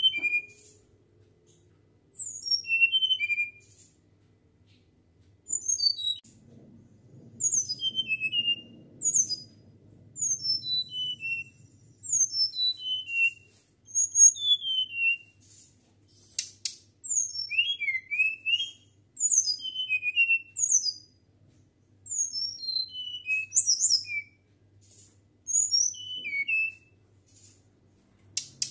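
Caged flycatcher (sikatan) singing: short phrases of quick, high, flute-like whistled notes, many sliding downward, repeated every second or two with brief pauses between.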